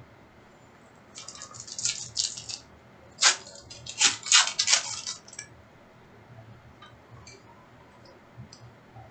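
Trading card packs and cards being handled: a flurry of small clicks and rustles a little over a second in, a louder run of rattling clicks from about three to five seconds in, then a few light scattered clicks.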